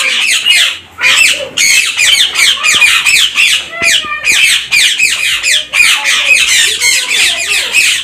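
Caged aviary birds, budgerigars among them, chattering and squawking together in a dense, continuous chorus of quick high chirps.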